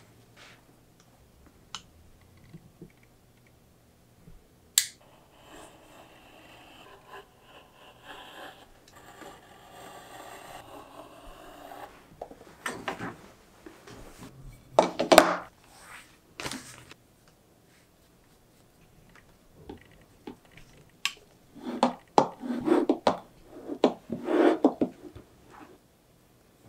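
Leatherworking handling sounds at a work table: scattered sharp clicks and taps of hand tools, a stretch of faint scraping, then several louder bursts of rubbing and handling of leather and tools.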